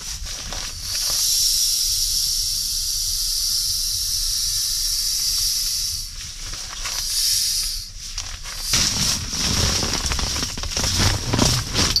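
Camping gear being packed inside a tent: a steady hiss for about five seconds, with a shorter one after it, then irregular nylon rustling and handling noises with soft knocks from about three-quarters of the way in.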